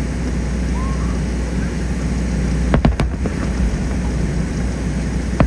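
Distant aerial fireworks shells bursting: a steady deep rumble of overlapping booms, with sharp cracks about three seconds in, two close together, and another near the end.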